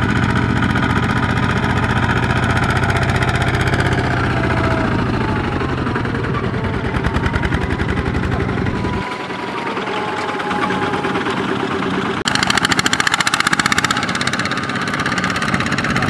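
Two-wheel walking tractor's single-cylinder diesel engine chugging steadily under load as it hauls a trailer of rice sacks through soft, muddy field. The sound changes abruptly a few times, about 4, 9 and 12 seconds in.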